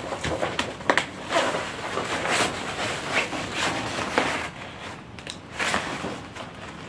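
A large paper poster rustling and crackling as it is unrolled and held up, a run of irregular crinkles and scrapes that eases off a little past the middle.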